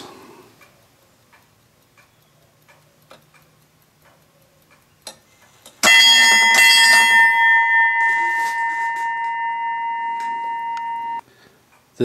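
1920s chrome-plated Chelsea automatic ship's bell struck twice in quick succession by its solenoid-driven striker, sounding two bells for 5 o'clock. The bell rings on with a bright, slowly fading tone, then cuts off suddenly.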